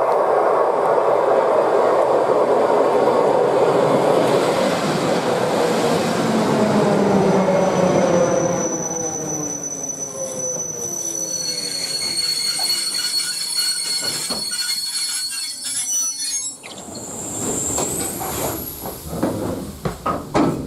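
ER2T electric multiple unit passing at speed: a loud rush of wheels and air for the first several seconds, then fading away as it recedes, with tones sliding down in pitch and thin high-pitched whines.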